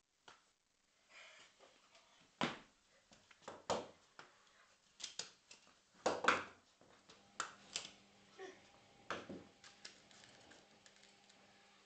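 Handling noises: a string of irregular clicks and knocks, about a dozen, the loudest about two and a half, four and six seconds in.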